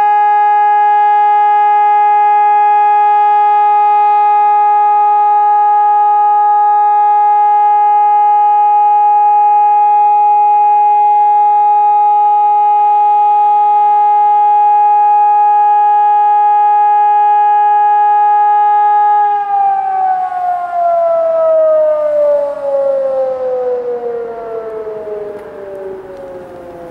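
ECN 1200 high-power civil-defence sirens sounding one loud steady continuous tone, the all-clear signal of the German test alarm. About 19 seconds in, the tone winds down in a long falling glide and fades.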